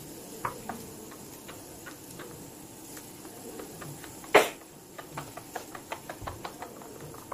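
Batter being mixed by hand in a glass bowl: a string of light irregular clicks and taps as the fingers stir against the glass, with one louder knock a little past halfway and the taps coming quicker near the end.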